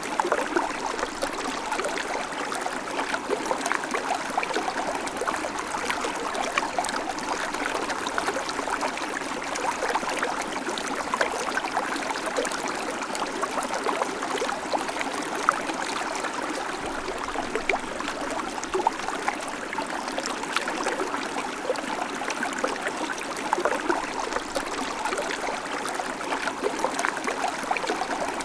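A babbling creek: shallow water running and gurgling over stones in a steady stream of small splashes and trickles.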